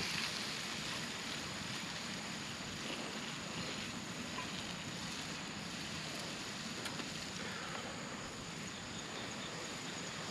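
Steady outdoor background hiss, with a faint tick or two.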